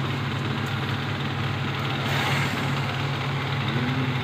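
Power amplifier rack running, its cooling fans giving a steady low hum with an even hiss.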